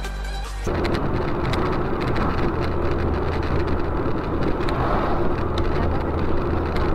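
Electronic music cuts off under a second in, giving way to steady road and engine noise inside a moving car: an even rumble with a low hum as it cruises along a highway.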